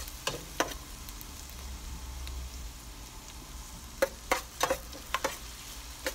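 Minced ginger sizzling in hot oil in a stainless steel pot as it is stirred. The spoon knocks against the pot twice near the start and in a quick cluster about four seconds in.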